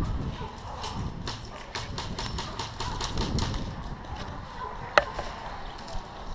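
Airsoft gunfire: a quick run of irregular clicks and snaps from about one to three and a half seconds in, then one sharp, loud crack about five seconds in, over low wind and handling rumble on a helmet camera microphone.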